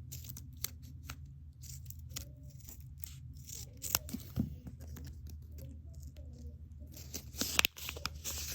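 Small plastic packaging being handled and torn open by hand, with light crinkles and scattered clicks, busiest near the end, over a low steady hum. A miniature toy straw is being unwrapped and fitted into a tiny cup.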